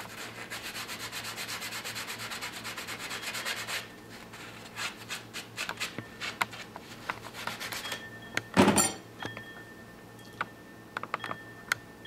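Fast, even strokes of a file rasping across the cut ends of jewellery wire for about four seconds, cleaning up the ends. After that come scattered light clicks and taps as the wire is handled, with one louder brief scuff about two thirds of the way through.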